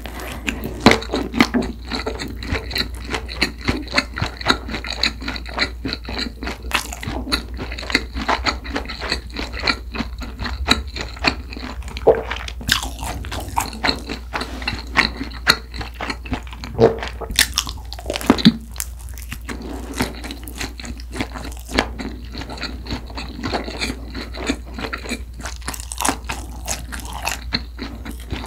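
Close-miked chewing of a mouthful of jalapeño sausage bread: a steady run of small wet mouth clicks and soft crunches, a little stronger around halfway.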